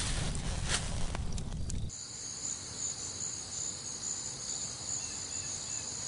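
Rustling and crackling of a foil survival blanket for about the first two seconds, then a sudden change to crickets chirping in a steady, high-pitched chorus.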